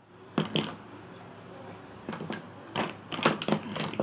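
Plastic cosmetic tubes knocking and clattering on a tabletop as a gloved hand picks through them, one knock about half a second in and a run of knocks from about two seconds on.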